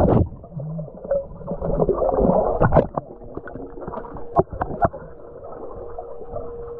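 Muffled underwater sound picked up by a camera submerged in a swimming pool: water movement with a few sharp knocks and clicks, and a steady hum that comes in about halfway through.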